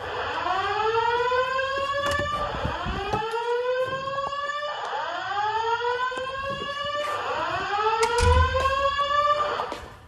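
Simplex voice-evacuation speakers sounding the slow-whoop alert tone of the evacuation cycle: four rising whoops in a row, each about two and a half seconds long, stopping just before the end. A low knock comes about eight seconds in.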